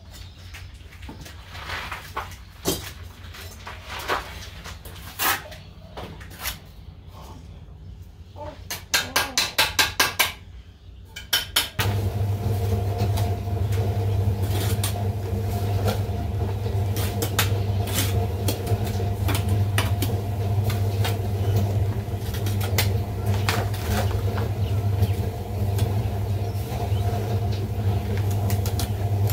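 Bricklaying trowel scraping and tapping on wet mortar and hollow clay bricks, with a quick run of about eight sharp taps around ten seconds in. From about twelve seconds in a steady low motor hum starts and runs beneath the scraping.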